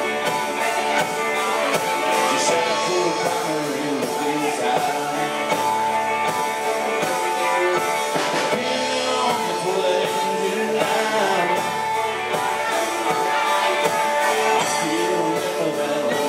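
Live country band playing a song: a lead voice singing over guitars, bass and drums.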